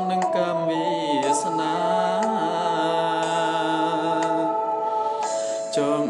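A song with singing over backing music: long held notes that slide slowly up and down in pitch.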